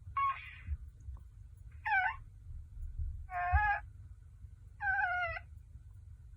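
Build-A-Bear The Child (Baby Yoda) plush's sound module playing the character's recorded baby-creature coos and squeaks through its small speaker: four short calls about a second and a half apart.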